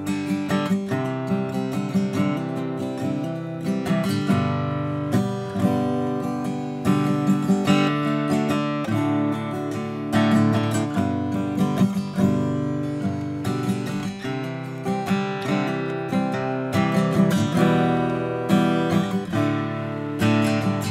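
Furch steel-string acoustic guitar played solo with a pick: strummed chords and picked notes in an instrumental break of the song, with no singing.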